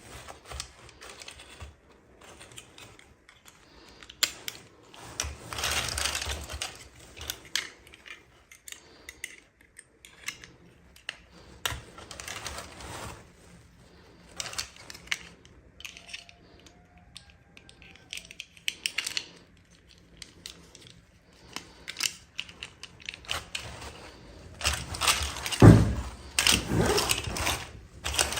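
Hands unboxing small plastic toys: light clicks and taps of plastic pieces with rustling bursts of packaging, loudest near the end.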